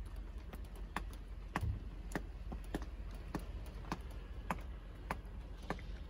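Sharp, irregular clicks, about two a second, over a low steady rumble.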